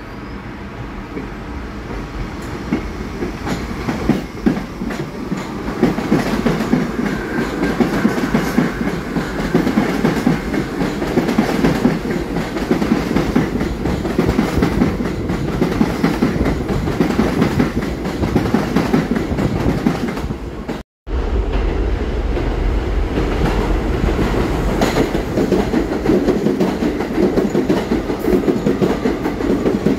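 New York City subway R62A train pulling into the station: wheels clatter over the rail joints as the cars run past along the platform. The sound grows louder over the first several seconds, then holds steady, with a brief dropout about two-thirds of the way through.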